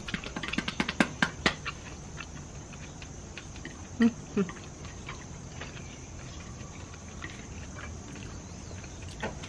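Eating with chopsticks: a quick run of small clicks and taps in the first two seconds from chopsticks on a plate and chewing, then only scattered faint ticks. About four seconds in there are two short, low hums from a person. A steady high insect chirr sits underneath.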